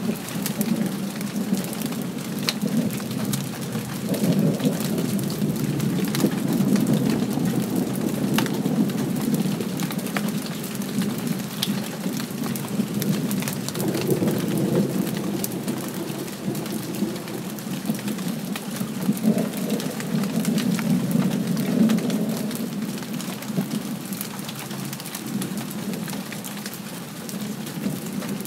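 Steady rain with sharp drops ticking close by, and distant thunder rumbling underneath in slow swells, strongest about four to nine seconds in and again around twenty seconds.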